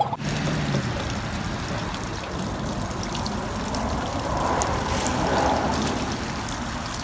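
Water running steadily out of an open garden hose, pouring and splashing.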